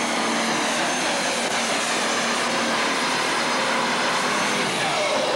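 Super stock pulling tractor's turbocharged diesel engine running flat out under load as it drags the weight sled, a loud steady roar with a high whine over it.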